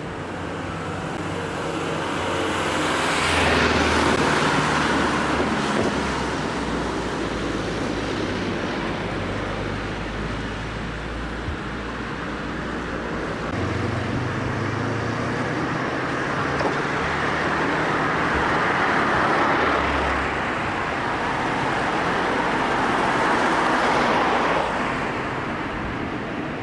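Road traffic: motor vehicles driving past on an open road, the sound swelling and fading as each goes by, with louder passes about 3 s in, near 19 s and near 24 s.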